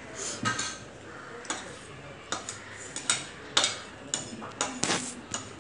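Irregular series of sharp taps and clicks, about fifteen in all, each with a short ring, the loudest about three and a half to five seconds in.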